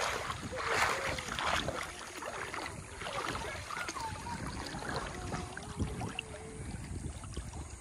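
Shallow water lapping and splashing right at the microphone, which is held just above the surface. The splashing is loudest in the first second or two and then settles into steady lapping.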